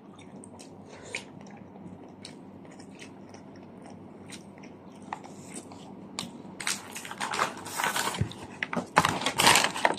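Eating at a table: faint chewing with small scattered clicks, then louder crinkly rustling of a paper shawarma wrapper from about six and a half seconds in.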